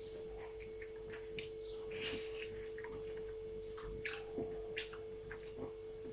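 Person chewing and eating mutton curry and rice, with scattered short smacking and clicking mouth sounds, over a steady hum.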